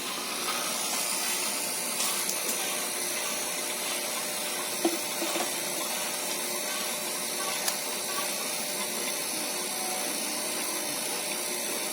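Small electric motor running steadily with a light whir and hiss, and a faint click about five seconds in and another near eight seconds.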